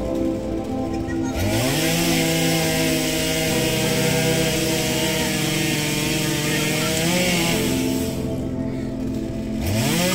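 Chainsaw revving up to full speed about a second in and running flat out for several seconds. It eases back to a lower speed near the end, then revs up again just before the end.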